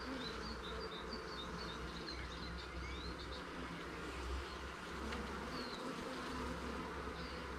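Honeybee colony buzzing around an opened hive: a steady, even hum of many bees.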